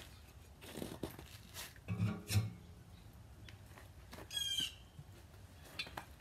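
Sheet-metal stove chimney pipe being handled and fitted onto a portable wood stove: a few light metal knocks and clanks, two low ringing strokes about two seconds in, and a short raspy squeak about four seconds in.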